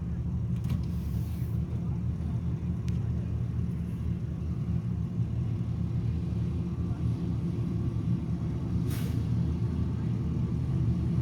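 Diesel engine of a fire truck running steadily at idle, a low even drone, with short hisses of air about a second in and near the end.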